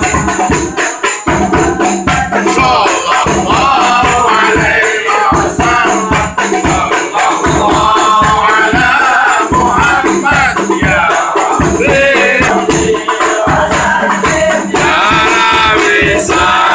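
A group of men singing Islamic devotional songs (sholawat) together, accompanied by rebana frame drums beating a steady, fast rhythm.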